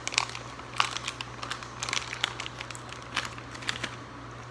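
Plastic candy wrapper crinkling as it is handled, an irregular run of sharp crackles that stops about four seconds in.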